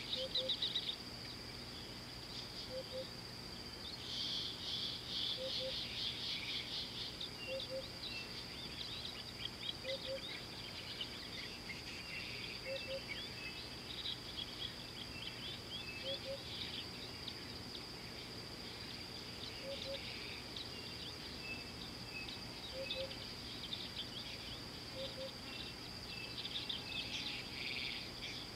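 Outdoor daytime ambience: a steady high-pitched insect drone, with birds chirping and twittering on and off throughout. A low two-note call repeats about every three seconds.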